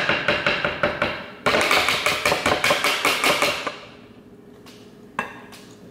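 A metal spoon scraping and knocking against a can of chilled coconut milk and a plastic blender cup in quick repeated strokes, about five a second, as the thick cream layer is scooped out. There are two runs of strokes that stop about four seconds in, then a single knock about five seconds in.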